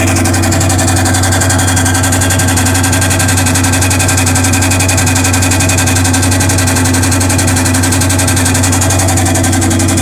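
LG automatic top-load washing machine running: a steady electric motor hum from the drive mechanism beneath the tub.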